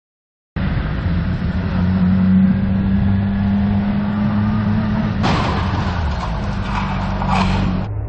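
Motorcycle engine running steadily under way, starting about half a second in, with two louder rushes of noise about five and seven seconds in. The engine note drops away near the end.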